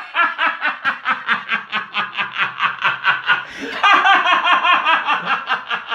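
A puppeteer's voice laughing for a hand puppet in a long run of quick, even 'ha-ha' pulses, about five a second. About four seconds in, the laugh gets louder and brighter.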